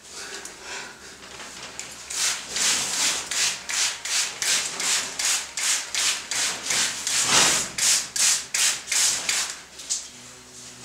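Rhythmic rubbing strokes on paper laid over carved stone, as a sheet is worked into the engraving to make a rubbing: about three quick scrubbing strokes a second from about two seconds in, with one longer, heavier stroke in the middle, stopping near the end.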